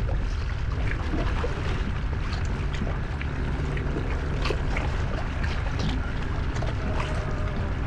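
Strong wind buffeting the microphone in a steady low rumble, with choppy water slapping and splashing in short scattered bursts.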